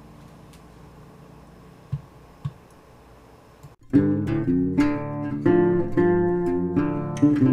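Acoustic guitar music, plucked and strummed, coming in loudly a little past halfway after a quiet stretch that holds two soft knocks.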